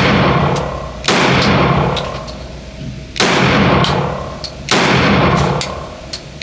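Glock 32 pistol in .357 SIG fired three times at a slow, uneven pace, each shot a sharp crack with a long echoing tail.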